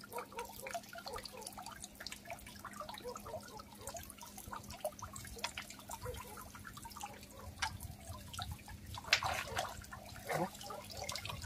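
Water dripping and splashing in small irregular drops, as a wet cast net is hauled out of the water, with a faint steady hum underneath.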